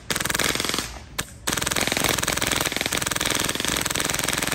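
Krytac P90 airsoft gun with an HPA drop-in kit (Wolverine Hydra engine) firing on full auto: a short burst of rapid shots lasting just under a second, then after a brief pause a long unbroken burst.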